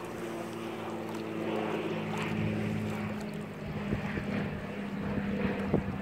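A boat's motor running steadily off across the water, a low hum with a few evenly spaced pitches above it, swelling slightly in the middle.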